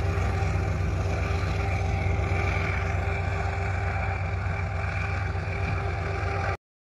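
Land Cruiser safari vehicle driving: steady engine and road rumble that cuts off abruptly shortly before the end.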